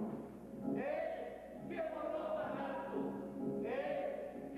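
Music with choral singing: two sung phrases, one starting about a second in and another near the end, each sliding up into a held note.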